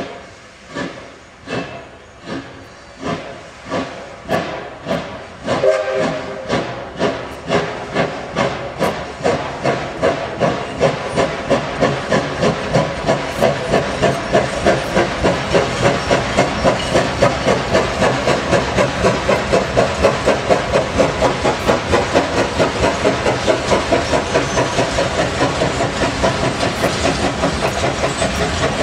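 Steam locomotive pulling away with a train, its exhaust chuffs slow at first and quickening steadily to about three a second, over steady steam hiss that grows louder about six seconds in.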